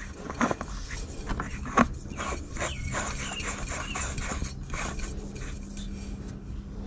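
A CAT fuel filter and its adapter being handled and threaded on by hand at a diesel fuel filter housing: irregular clicks, taps and rubbing that thin out after about five seconds.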